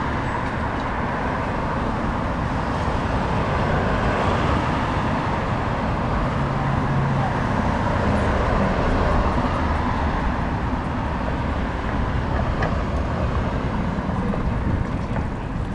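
Road traffic passing on a city street: a steady rush of car and engine noise that swells for a few seconds in the middle as vehicles go by.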